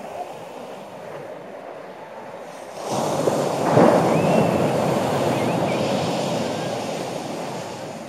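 Sea wave breaking on the shore: a steady surf hiss that swells up suddenly about three seconds in, peaks, then slowly fades away.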